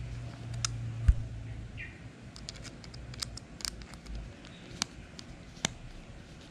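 Small scattered clicks and scrapes of a screwdriver working a screw in the body of a Shimano Sienna 2500 FE spinning reel. A low rumble fades out after about two seconds, and there is a single thump about a second in.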